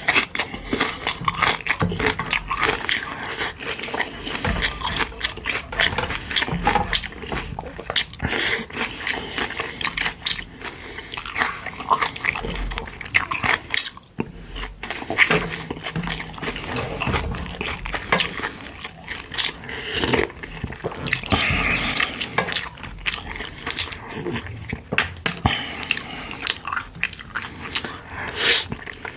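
Close-up eating sounds of pork-bone soup: wet chewing and biting with many quick, irregular mouth clicks and slurps.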